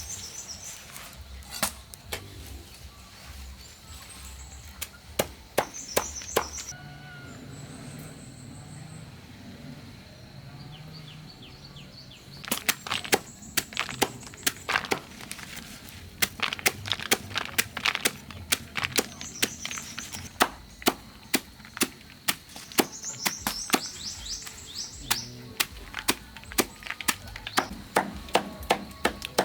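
A series of sharp knocks: a few at first, then from about halfway on an irregular run of about two a second. Short high chirps come through now and then.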